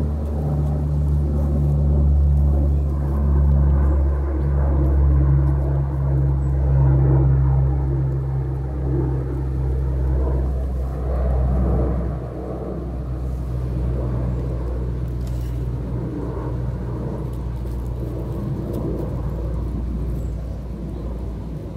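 A steady low mechanical hum with a rumble, like a motor running, which eases a little about twelve seconds in.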